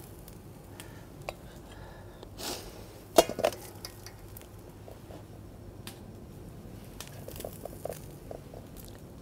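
Sparse light clinks and taps of a serving utensil against a stainless steel colander and a ceramic plate as stir-fried apple slices are lifted out and served, with the loudest clink about three seconds in.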